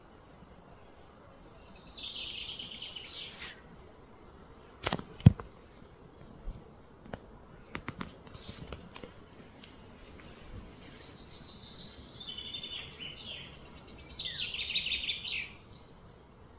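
Bird song in rapid, high-pitched pulsed trills that fall in pitch, once near the start and again, longer, in the last few seconds, over steady outdoor background noise. A pair of sharp knocks about five seconds in is the loudest sound, with a few lighter clicks a couple of seconds later.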